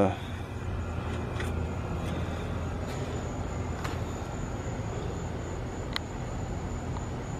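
Steady low outdoor background rumble with a faint, steady high-pitched whine and a few light clicks near the end.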